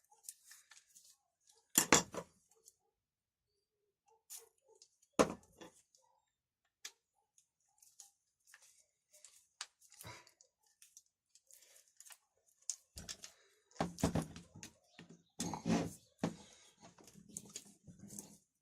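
Intermittent clicks and knocks of small metal parts and hand tools being handled while bolts are taken out and swapped on a chainsaw's recoil starter. Two sharp knocks stand out, about two and five seconds in, and there is a run of clattering near the end.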